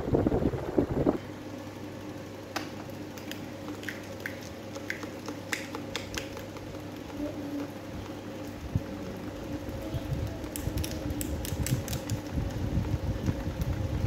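Electric table fans running with a steady motor hum, their airflow buffeting the microphone in the first second and again through the second half. Scattered light ticks sound through the middle.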